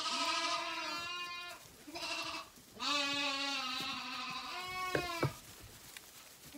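Zwartbles lambs bleating: several long, wavering calls one after another, with a couple of small knocks about five seconds in. They are hungry lambs calling for their bottle.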